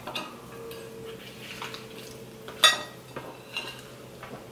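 Metal forks scraping and tapping against plates and takeout bowls during a meal, a few scattered clinks with one sharper knock about two and a half seconds in.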